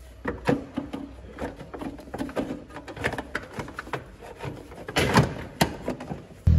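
Hands working rubber and plastic engine intake hoses and air ducting back into place in a van's engine bay: irregular clicks, knocks and rustling, with a cluster of louder knocks about five seconds in. A loud low hum starts abruptly at the very end.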